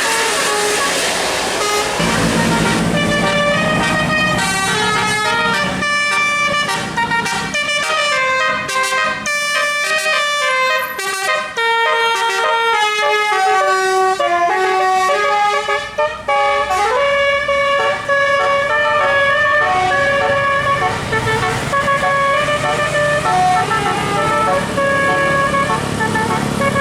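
A tour bus's multi-tone musical air horn ('telolet') plays a fast melody of stepping notes, with a short upward slide of pitch about 16 seconds in. The bus's engine runs underneath.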